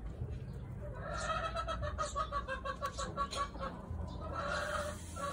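Chicken clucking: a quick run of repeated clucks, about five a second, then one longer call near the end.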